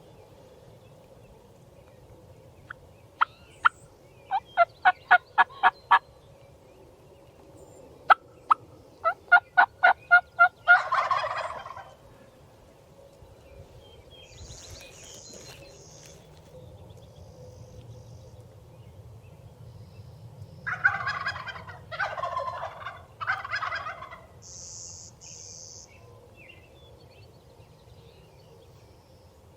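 Two runs of quick turkey yelps, the second answered at once by a wild turkey gobbling. About ten seconds later come three gobbles in quick succession. Faint high chirps of small birds come in between.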